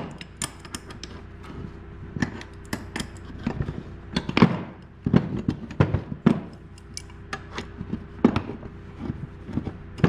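Irregular metallic clicks, clinks and knocks of a hand wrench working on the bolts of a bearing puller mounted on a chainsaw crankcase, with the louder knocks in the middle. A steady low hum runs underneath.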